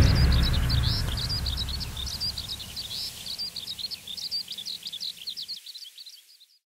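Birds twittering, a fast run of many short high chirps a second, fading out near the end, over the low tail of music dying away in the first seconds.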